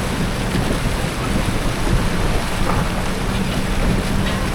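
A 4x4 Fuso Canter truck fording a river at constant speed: the engine hums steadily under a constant rush and splash of water against the truck.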